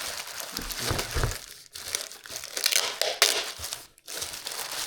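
Packing material crinkling and rustling in irregular handfuls as a box is unpacked, with a dull low bump about a second in.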